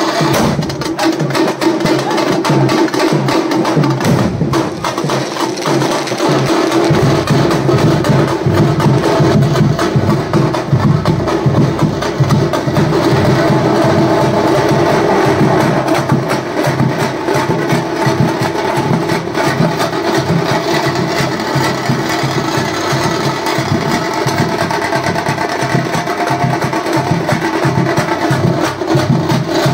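Festival drum troupe playing a fast, dense rhythm on stick-struck drums, over a steady droning tone. A deeper drum beat comes in strongly about seven seconds in.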